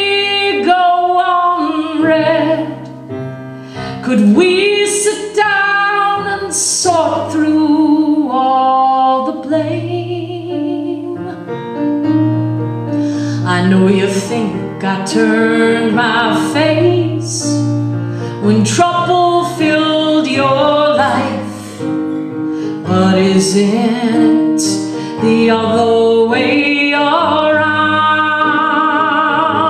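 A woman singing a song, with vibrato on held notes, accompanying herself with sustained chords on a Casio electronic keyboard.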